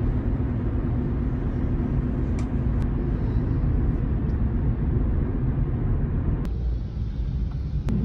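Steady low rumble of road and engine noise inside a moving car's cabin. About six and a half seconds in, the higher hiss drops away and the low rumble carries on.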